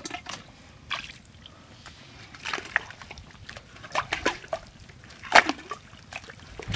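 Wet mud and water sloshing and splatting in irregular bursts as a bowl is scooped through a muddy hole by hand, the loudest splash about five seconds in.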